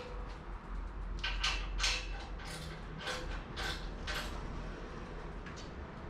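Steel pieces knocking and clinking, about seven sharp knocks over three seconds, some leaving a brief metallic ring, over a low steady hum.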